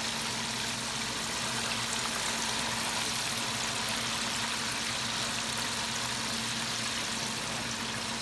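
Battered pieces frying in a pot of hot oil over an outdoor burner: a steady sizzling hiss, with a steady low hum underneath.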